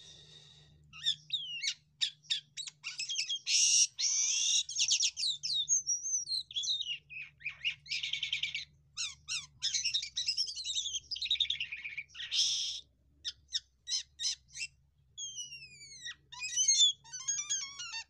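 Caged jalak kapas (white-shouldered starling) singing a long, varied song of quick chips, sliding whistles and several harsh buzzy notes. It ends in a run of falling whistles and a fast trill near the end.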